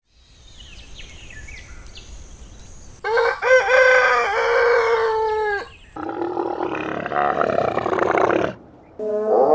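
Animal calls: faint high chirping for the first three seconds, then a loud, pitched call with gliding tones about three seconds in, followed by a second long, loud call.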